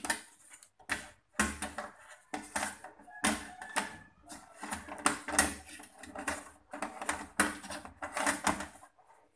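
Handling noise from hands moving a black plastic device and its cables: clusters of clicks, knocks and rustles, stopping shortly before the end.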